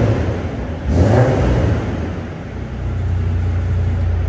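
VL Commodore's three-litre six-cylinder engine blipped by the throttle, with one rev rising and falling about a second in, then settling back to a steady idle.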